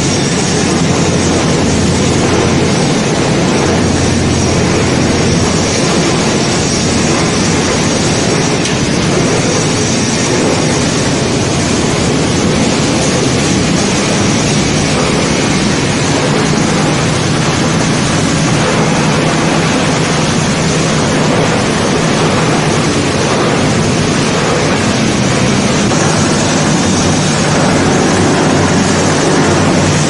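Plastic woven bag crushing and washing line running: a loud, even din of motors and water churning shredded plastic flakes in the washer tank, with a steady low hum underneath.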